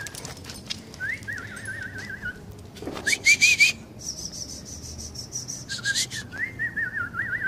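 A high, wavering whistle in two long warbling phrases, one about a second in and one near the end. Between them come a short rising whistle and a thin, steady, higher tone.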